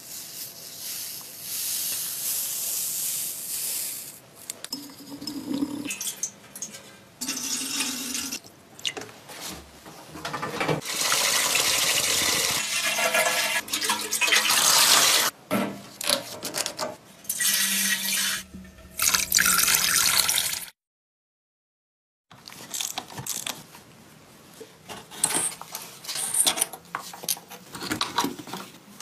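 Water pouring and running in several short stretches, with knocks and handling noises between them; the sound cuts out completely for about a second and a half about two-thirds of the way through.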